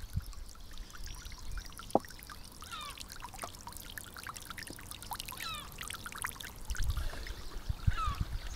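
Small waves lapping and trickling against shoreline rocks and the hull of a resting RC catamaran, with scattered small clicks and splashes and a low rumble near the end.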